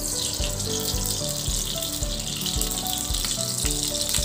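Refined vegetable oil poured into a hot non-stick kadai, sizzling with a steady hiss. Background music with a steady beat plays underneath.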